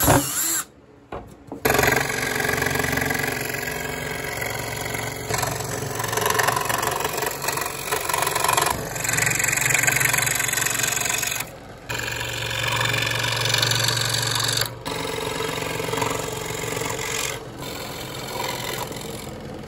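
Scroll saw running, its blade reciprocating through a thin wooden ukulele top to cut out a sound hole: a steady motor hum under the rasp of the cut. The sound drops out briefly about a second in and twice more later.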